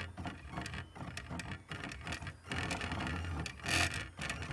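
Stepper motors of a homemade CD-ROM-drive printer running in short stop-start bursts, driving a pen back and forth, with the pen tip scratching on paper. A louder burst of movement comes near the end.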